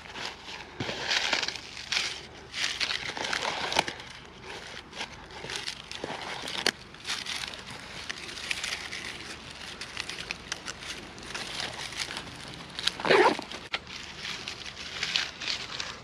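Irregular rustling and crunching of dry leaf litter and twigs, in uneven bursts with a louder crunch about thirteen seconds in.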